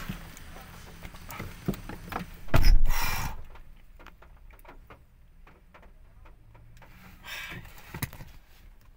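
Rain hiss and rustling as a person gets into a car, then a car door slams shut with a deep thump about three seconds in. After that the rain noise is shut out and only faint clicks and rustles remain inside the closed cabin.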